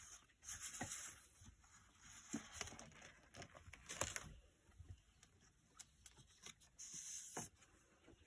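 Faint rustling of paper and cardstock as tucks slide in and out of pockets in a spiral-bound journal, with a page turned about four seconds in. Light taps and clicks come between the rustles.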